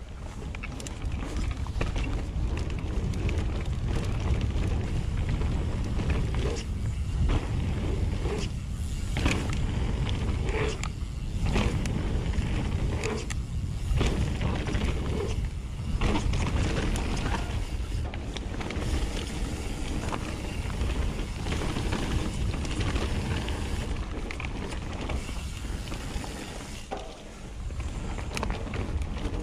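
Nukeproof Mega 290 downhill mountain bike ridden over a rough trail: tyre noise and the rattle and clatter of chain and frame over bumps, with wind buffeting the action camera's microphone.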